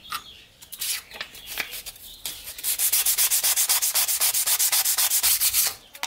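Hand sanding: a folded piece of sandpaper rubbed over a small metal pocket-knife part. A few uneven strokes at first, then fast, even back-and-forth strokes from about halfway that stop abruptly just before the end.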